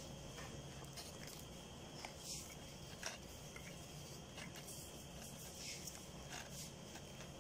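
Faint chewing of fried chicken, with scattered soft clicks and light plastic rustling from hands in disposable plastic gloves handling a small wrapper.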